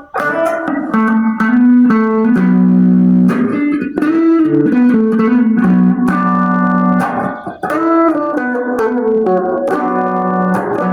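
Electric guitar played through a rat-style distortion, the Joyo Dr.J compressor, a phaser and reverb: picked chords and single notes, each struck sharply and left to ring.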